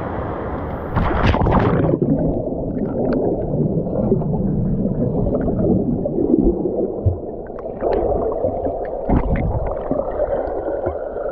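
Muffled gurgling and rushing of river water, dull with little high end, with scattered small knocks and thuds.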